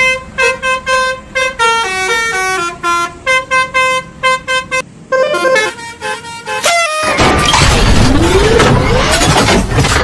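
Basuri telolet horn, a multi-note musical bus horn, playing a quick tune of short beeping notes that steps down in pitch in places. About seven seconds in, the notes give way to a loud, noisy clatter with sliding whines.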